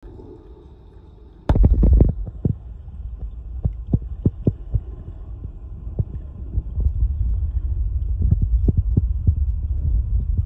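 Wind buffeting the phone's microphone: a low rumble that starts suddenly about a second and a half in, with irregular soft thumps.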